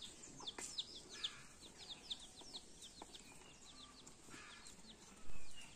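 Birds chirping in quick runs of short, high, downward-sliding chirps, with a few lower calls mixed in. A dull thump comes near the end.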